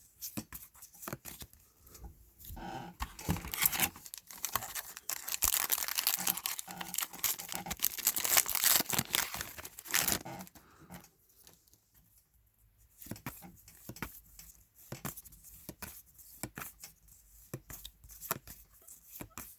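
A trading card pack wrapper being torn open and crinkled for several seconds. After about ten seconds this gives way to scattered light clicks and taps as the cards are handled.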